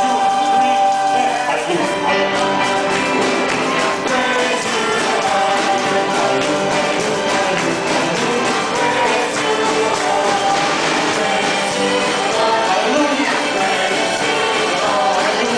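Live worship band playing, with violins and guitars, and voices singing along.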